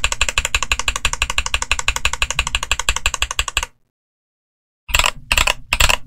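Fast typing on a mechanical keyboard fitted with Flaming Skull Ice Blue tactile switches: a dense, even run of key strokes that stops abruptly a little past halfway. After about a second of silence come three short bursts of key presses.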